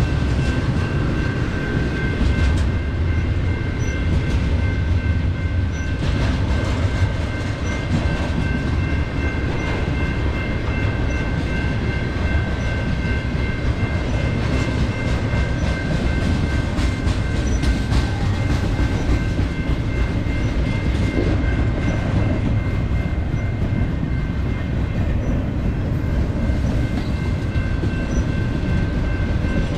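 BNSF double-stack intermodal train passing, its container cars running over the rails with a steady rumble and clicks from the wheels. A steady high ringing tone sounds over it.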